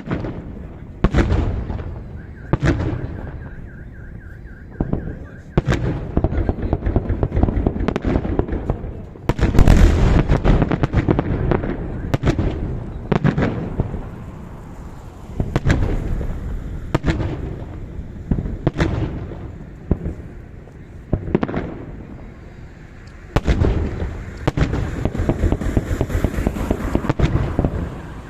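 Fireworks salute: a long run of sharp bangs from aerial shells bursting, each trailing off in a rumbling echo. A dense, loudest volley comes about ten seconds in.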